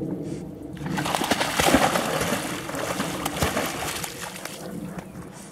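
Water splashing as a puppy thrashes and paddles in shallow water, a noisy rush of splashes from about one second in that fades out near the end.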